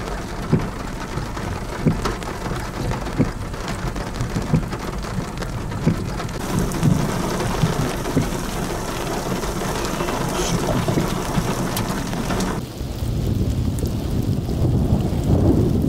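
Thunderstorm rain with many sharp drop hits and thunder rumbling. About twelve and a half seconds in, the sound cuts abruptly to a duller, lower rushing noise.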